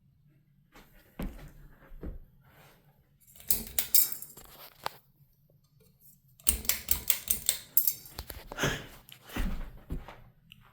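Steady low hum of a Mainstays Hugger ceiling fan running. Over it, two long bursts of rapid clicking and rattling, about three and six seconds in, are the loudest sounds.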